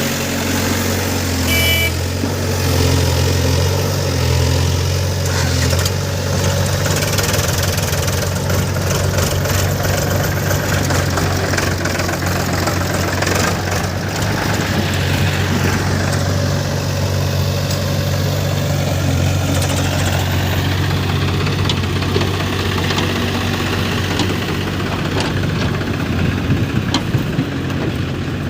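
Heavy diesel engine running steadily with a deep, even hum and some light clatter in the middle, from machinery loading mud.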